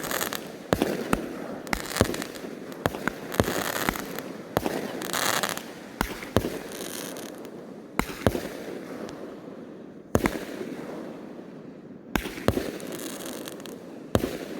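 Consumer fireworks going off: a rapid string of sharp bangs with crackling, then single reports about two seconds apart.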